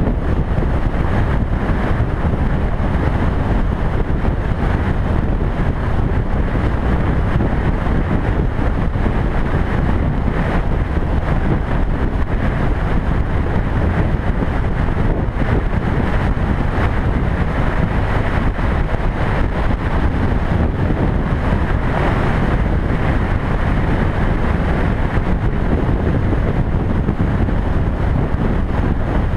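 Steady wind rush on a motorcycle-mounted camera's microphone at highway speed, with the motorcycle's running and road noise underneath.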